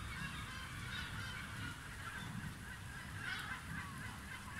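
Low rumble of a distant thunderstorm, with repeated animal calls over it and a louder, falling call about three seconds in.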